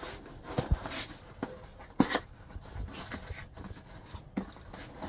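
Cardboard and foam packaging being handled: rubbing and scraping with scattered light knocks and clicks, the loudest about two seconds in.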